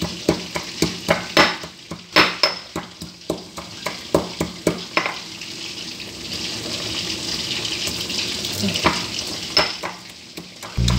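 Stone pestle pounding red chillies in a stone mortar for sambal: sharp stone-on-stone knocks, about three a second, for the first five seconds, then fewer knocks and more grinding. Behind it is a steady sizzle of oil frying, plainest in the second half.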